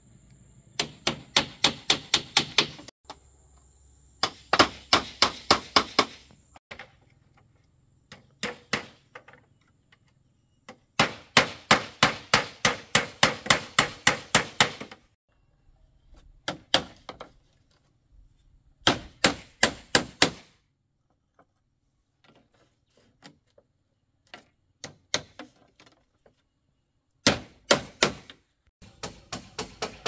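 Hammer driving nails into bamboo, in quick runs of ringing strikes, about five a second, with pauses between the runs; the longest run lasts about four seconds in the middle.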